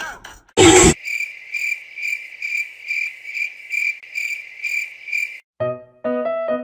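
A short, loud burst of noise, then a cricket chirping in an even rhythm about twice a second. Piano music comes in near the end.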